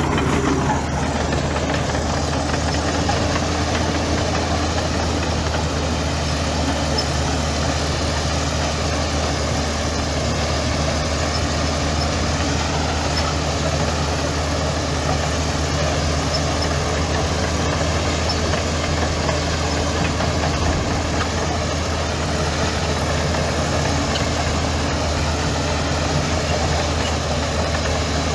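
Heavy earthmoving machine's diesel engine running steadily at an even, low speed, with no revving or change in pitch.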